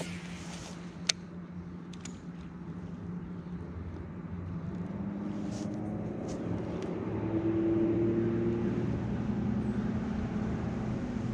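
Electric trolling motor running with a steady low hum that grows louder from about halfway through. A single sharp click about a second in.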